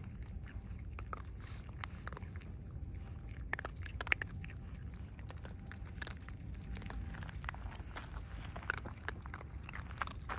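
Raccoon dogs crunching scattered dry food pellets and padding over gravel: irregular crisp crunches and clicks, a few louder ones around four seconds in, over a low steady rumble.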